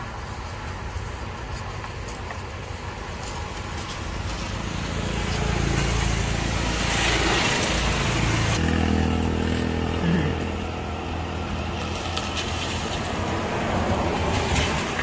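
Street traffic: a motor vehicle passes, loudest about seven seconds in, followed by a steady engine hum.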